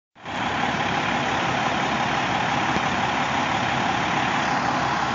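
Fire engine's diesel engine idling close by, a steady unchanging drone.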